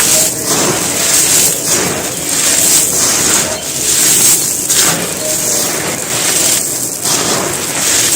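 Dry handmade cement cups and balls being crushed and crumbled: a continuous gritty, crunchy crackling that swells and eases in repeated squeezes.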